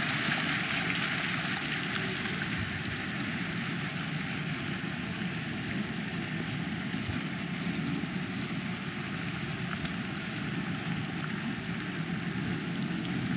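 Town-centre street ambience: a steady rush of traffic with a low rumble. A passing vehicle fades away over the first couple of seconds.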